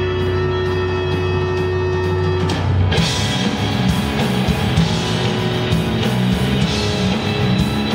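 Rock band playing live with electric guitars, bass and drums: a held, sustained chord for the first three seconds, then the full band comes in with a heavier, distorted sound and a moving bass line.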